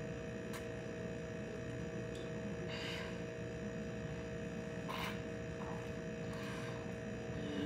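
A steady electrical hum of two held tones, with a few faint clicks, around three and five seconds in.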